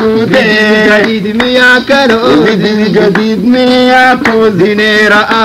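Loud singing with music: voices carrying a melody in held notes that slide from one pitch to the next.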